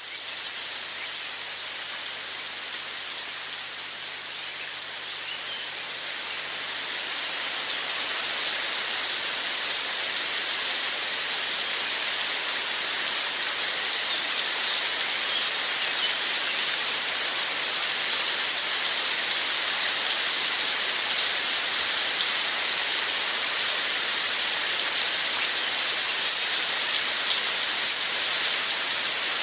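Steady rain falling, a dense even hiss of many drops that grows louder over the first eight seconds or so and then holds steady.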